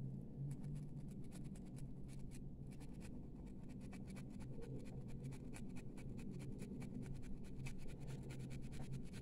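Brass bangle being scrubbed with a wad of copper scouring wire to polish its dull surface: a fast, continuous scratching of many quick strokes, with a short pause about two and a half seconds in. A steady low hum sits underneath.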